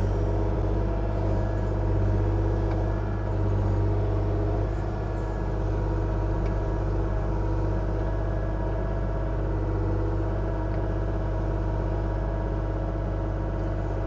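Kubota KX040-4 mini excavator's diesel engine running steadily at an even pitch.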